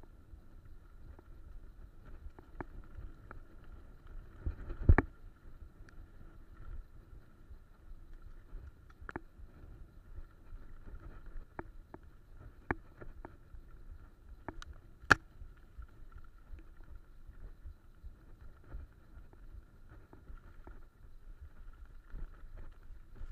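Mountain bike rolling over a dirt trail: a steady low rumble of tyres and wind on the microphone, with a faint steady hum above it. Scattered knocks and rattles from the bike going over bumps, the loudest about five and fifteen seconds in.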